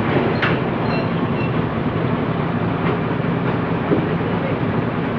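Heavy diesel engine running steadily, a low even drone with no change in speed.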